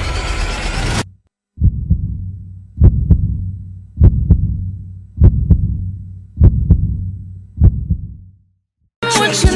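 Heartbeat sound effect: six deep double thumps about 1.2 seconds apart, the first one weaker, each fading over a low hum. A song breaks off about a second in and music comes back near the end.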